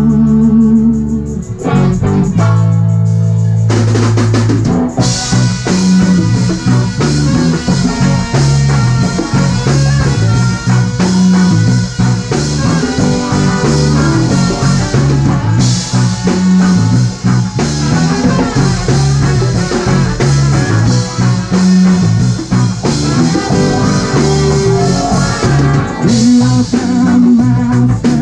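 Live band playing an instrumental passage: drum kit, electric guitar and bass, with trumpet and saxophone. The full drum beat with cymbals comes in about five seconds in.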